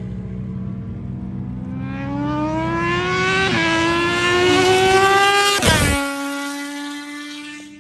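Britten V1000 race motorcycle's V-twin accelerating hard toward the microphone, its pitch climbing with a brief dip at a gear change. It passes close by about three-quarters of the way through, the note dropping sharply, then fades as it draws away.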